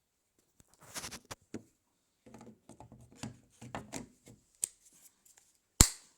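A chainsaw being handled without running: a series of clicks, rattles and knocks, with one sharp, loud click near the end. No engine sound, as befits a saw that will not work.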